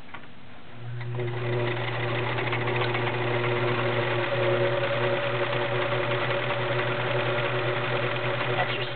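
Kenmore model 1947 convertible sewing machine starting up about a second in and then running steadily, stitching through cotton fabric with an even motor hum and a fast, regular chatter of the needle mechanism. The machine is freshly oiled, with its timing checked.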